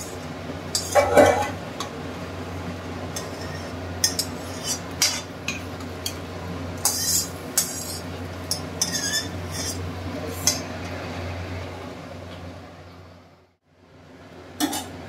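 Steel kitchenware scraping and clinking as spice-fried rice is tipped from a steel bowl into a steel pot of hot water. There is a steady low hum underneath, and the sound fades out near the end.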